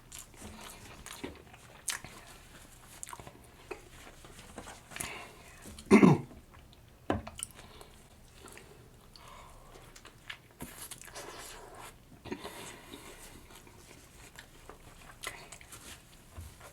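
Close-miked chewing and biting of a sauced chicken sandwich dipped in ranch, with soft wet mouth clicks, and a short hummed sound from the eater about six seconds in.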